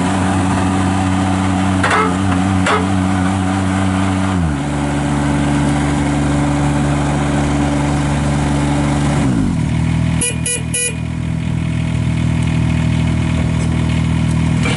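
Kubota diesel engine of an Avant 420 articulating mini wheel loader running hard as it drives, its pitch dropping in two steps about four and nine seconds in. About ten seconds in come three short beeps.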